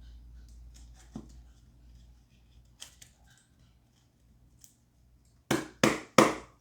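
Tarot cards being handled: a few faint clicks, then three short, loud swishes in quick succession near the end as the deck is shuffled.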